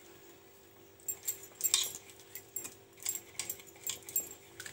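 Light metallic clicks and ticks in small irregular clusters as a steel cup is shaken and knocked against the pan to empty a crumbly mixture into it, over a faint steady hum.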